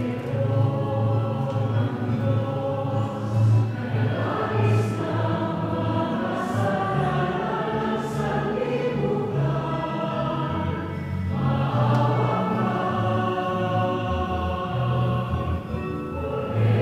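Choir singing a slow church hymn with sustained instrumental accompaniment during Mass.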